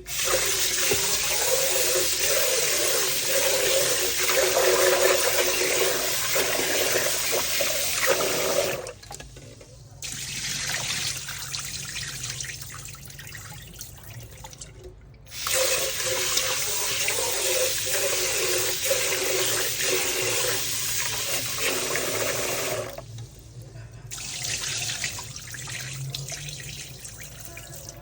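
Kitchen tap running into a pot of basmati rice as the rice is washed and rinsed: two loud runs of water of about eight seconds each, with quieter water sounds between them and after.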